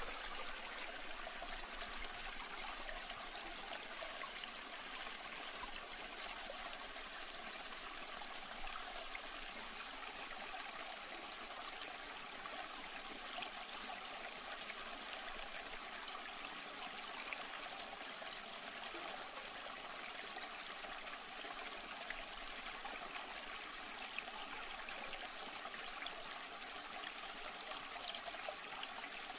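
Steady trickling of circulating aquarium water.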